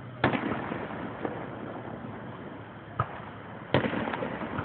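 Fireworks exploding in the sky: a loud bang about a quarter second in and another near four seconds, with smaller pops between and crackling after each big burst.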